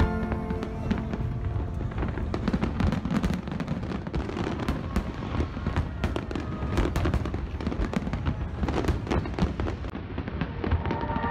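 Aerial fireworks shells bursting and crackling in quick, dense succession, with music playing under them at the start and again near the end.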